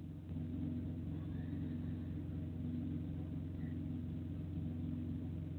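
Steady low hum made of several low tones held without change.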